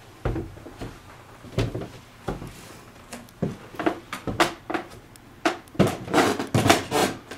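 Irregular knocks and thumps in a small room, about one a second, coming closer together near the end.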